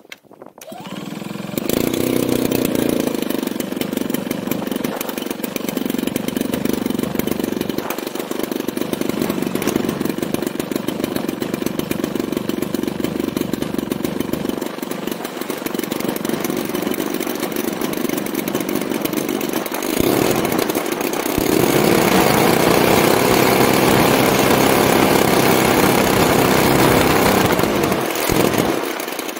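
DLE-55RA single-cylinder two-stroke gasoline engine on a large-scale model airplane, started on choke, catching about a second in and then running steadily at idle. About twenty seconds in the engine sound gets louder and stays that way until it dips near the end.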